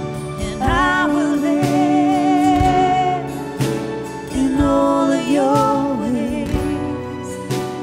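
Live contemporary worship band playing: a woman sings the lead melody, holding notes with vibrato, over drums, acoustic and electric guitars, bass and piano.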